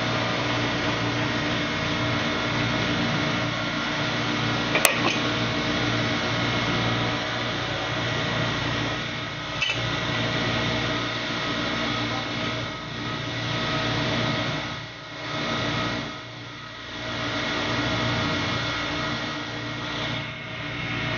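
Drilling rig machinery running steadily: a dense mechanical hum holding several steady tones. A sharp metal clank comes about five seconds in and a lighter one near ten seconds, and in the second half the sound dips and swells a few times.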